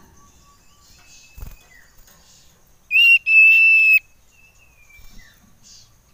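Common iora giving a loud whistled call about three seconds in: a short note, then a long level whistle held for most of a second. Fainter, softer whistled notes come before and after it.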